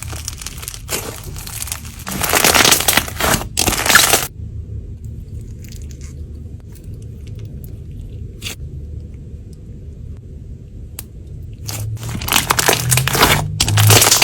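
Slime being pressed and squished by hand, crackling and crunching in two loud stretches, about two seconds in and again near the end, with a few faint clicks between.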